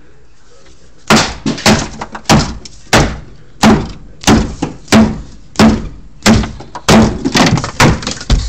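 A subwoofer box being smashed apart by a string of heavy blows. About a dozen loud cracking impacts, roughly one and a half a second, start about a second in.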